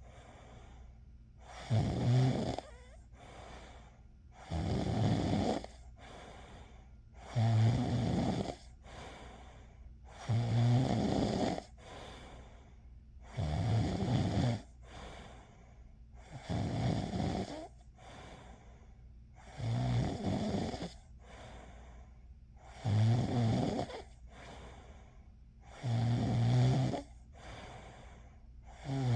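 A person snoring steadily, with a snore about every three seconds, each about a second long, and a softer breath between them.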